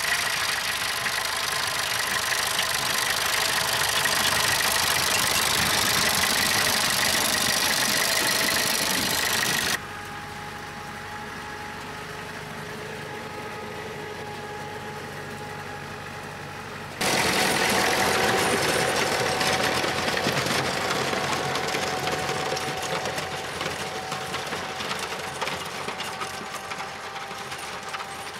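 Vintage tractor engine running steadily as the tractor plows snow with a front blade. The sound drops abruptly about ten seconds in to a quieter, even running with steady tones, comes back loud about seven seconds later, and fades slowly near the end as the tractor moves away.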